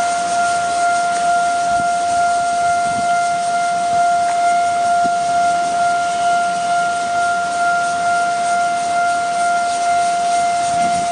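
A steady, unwavering high tone with fainter overtones, held without a break or change in pitch.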